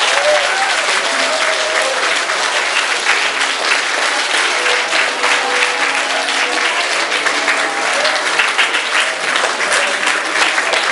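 A large audience of students applauding steadily, with a few voices calling out over the clapping.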